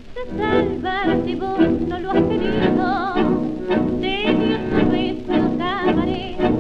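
1929 tango orchestra recording: a melody with strong vibrato over a steady, evenly pulsed accompaniment, with the narrow, thin sound of an old disc.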